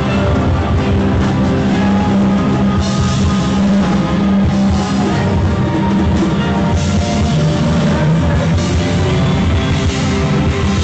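Live rock music from a band, an instrumental passage with no singing, playing loud and steady throughout.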